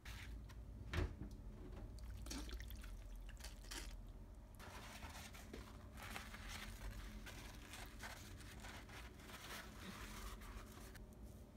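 Faint wet handling of raw chicken livers, with a sharp knock about a second in. Then kitchen paper towel crinkles and rustles for several seconds as it is pressed over the wet livers to blot them dry, stopping shortly before the end.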